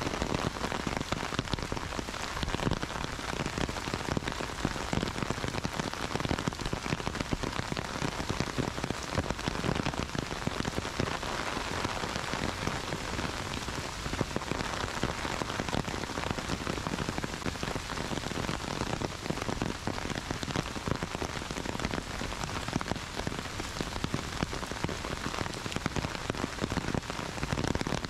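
Heavy rain falling on trees, grass and wet paved footpaths: a steady, dense hiss with many separate drop hits.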